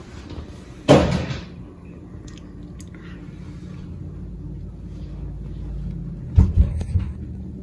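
Wind buffeting the microphone as a steady low rumble, with a sudden loud burst about a second in and a few heavy thumps near the end.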